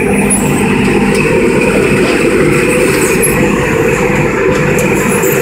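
Popcorn coating machine's rotating stainless-steel drum running steadily, a loud, even mechanical rumble, with faint clicks of sugar-coated mushroom popcorn tumbling out down the discharge chute.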